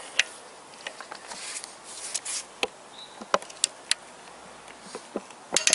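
Torque wrench tightening a bolt, set to 60 N·m. Scattered clicks and knocks of the wrench being worked give way near the end to a quick cluster of sharp clicks as it clicks over: the bolt has reached its set torque.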